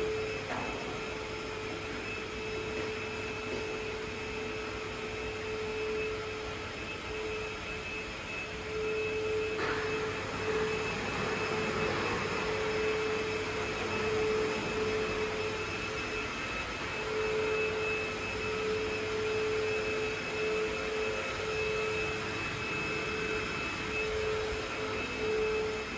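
Steady machine hum, like a fan or blower running, with a constant mid-pitched tone that swells and fades every few seconds over a soft hiss.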